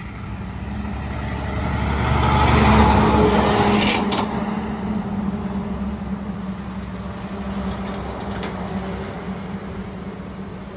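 Semi truck with an end-dump trailer driving past: its engine and tyres grow to loudest about three seconds in, then fade slowly as it pulls away.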